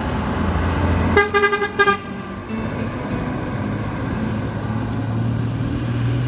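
A bus horn sounds a rapid series of short toots on one steady note about a second in, over the low rumble of the engine. Later an engine note slowly rises.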